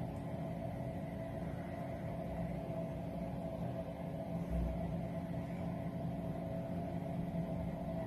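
Steady mechanical hum over a low rumble, with a brief deeper rumble about halfway through.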